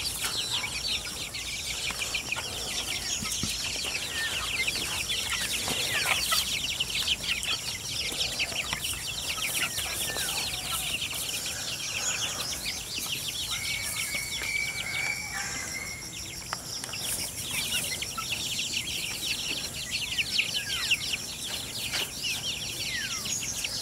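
A flock of young chickens calling constantly: many short, high-pitched peeps overlapping one another.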